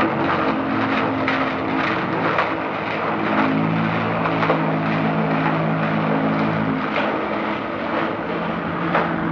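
Construction machinery engines droning steadily, their low hum shifting pitch a couple of times, under the heavy hiss of an old film soundtrack.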